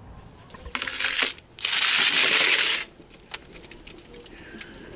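A metal baking tray scraped across the stone floor of a wood-fired oven in two pushes, the second longer and louder at about a second, followed by the wood fire crackling with scattered pops.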